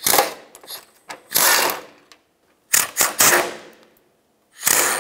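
Ratchet wrench clicking in about four short bursts, backing out the 13 mm bolts that hold the front skid shield.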